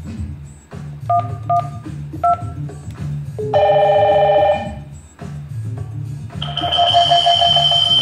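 Three short keypad beeps from a Yealink IP desk phone as keys are dialled, then an incoming-call ringtone from a Hikvision DS-KH6310-W indoor monitor sounds twice: about a second, then a longer ring of about two seconds. Background music plays throughout.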